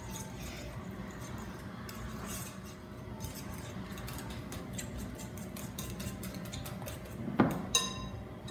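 Metal fork stirring rice flour into beaten eggs in a glass mixing bowl, clinking and scraping against the glass in quick repeated strokes. Near the end there is a louder clink that rings briefly.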